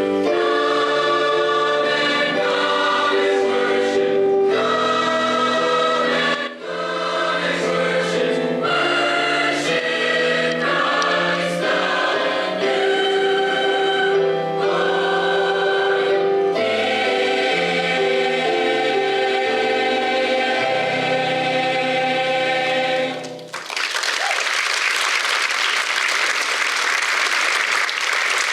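High school choir singing in parts, ending on a long held chord about 23 seconds in, followed by audience applause.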